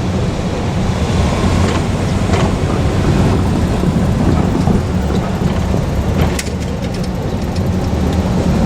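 Steady low engine hum of a vehicle running, with a few light clicks about six seconds in.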